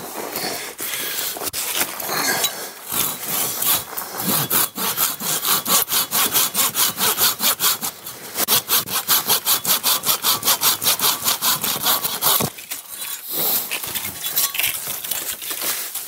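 Hand saw cutting through the thin top of a dead, dry conifer trunk with quick, even back-and-forth strokes. The strokes pause briefly about twelve seconds in, then carry on more softly.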